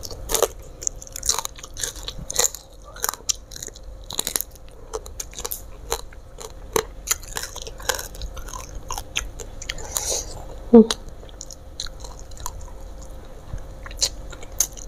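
Close-miked mouth sounds of a person eating fried mujair (Mozambique tilapia) by hand: chewing, wet lip smacks and small crunches, with one louder smack about eleven seconds in.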